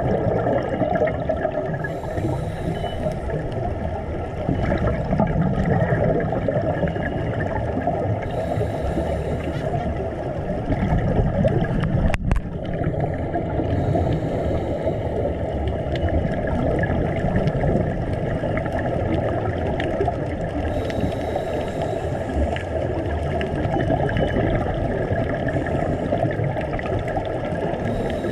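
Underwater sound through a camera housing: a steady, muffled rush of water, with a scuba diver's exhaled regulator bubbles breaking out in bursts about every six seconds.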